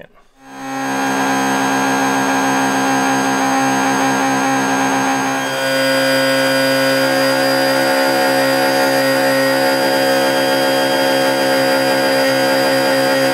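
Coleman rechargeable QuickPump air-mattress pump switched on, its electric fan motor spinning up within a second and then running loud and steady with a whine over a rush of blown air. About halfway through its tone shifts slightly.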